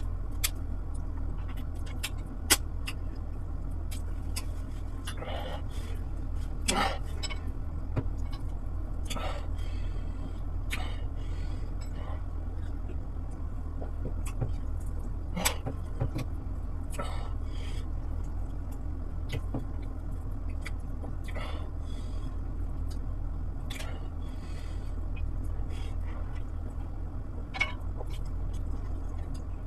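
A person eating fish soup and wheat swallow by hand: chewing and mouth noises with scattered sharp clicks, over a steady low hum.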